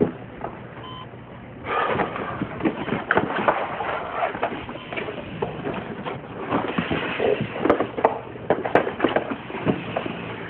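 Rustling with many light clicks and knocks as objects are handled on a table, over a faint low hum.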